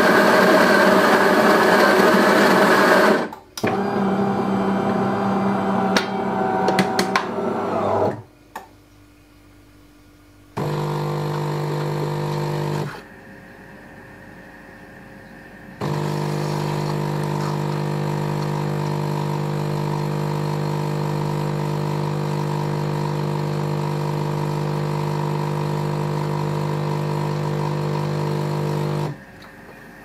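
DeLonghi PrimaDonna Soul bean-to-cup machine working through a cappuccino: the coffee grinder runs loudly for about three seconds, then a lower motor whir with a few clicks follows for several seconds. After a short lull the pump hums briefly, pauses, then hums steadily for about thirteen seconds while brewing the espresso shot, and stops near the end.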